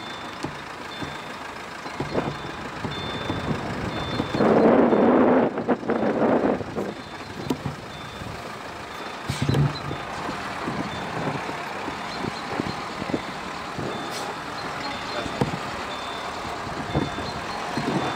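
Subaru Forester driving over a rutted dirt and mud track, heard from a camera mounted outside the car: running noise with many knocks and bumps from the tyres and suspension, and a louder rushing noise about four to seven seconds in.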